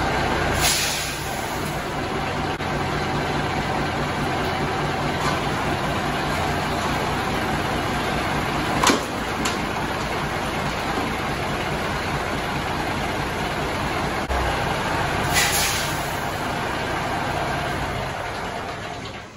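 Peterbilt 359's big diesel engine idling steadily, with two short hisses, one about a second in and one about fifteen seconds in, and a single sharp knock about nine seconds in, the loudest moment.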